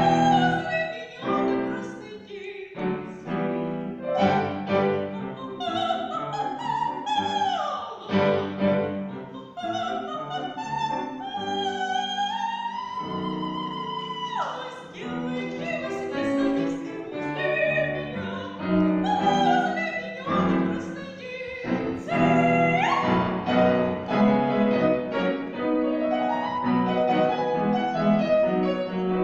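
A high female voice singing in classical style with piano accompaniment. The voice has a wobble in its sustained notes and sweeps up and down in pitch several times.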